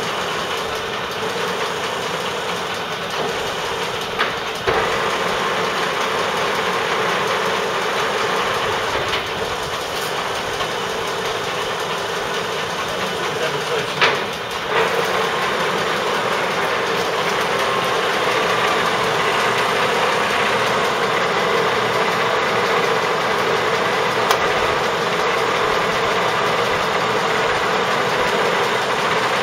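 Ward No. 7 combination turret lathe running under power, its spindle and drive making a steady mechanical whirr, working as it should. A few short knocks come through, about four, fourteen and twenty-four seconds in.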